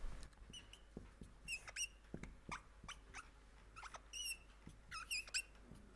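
Faint squeaking of writing on a board: short high squeaks in several small clusters, with light ticks between strokes.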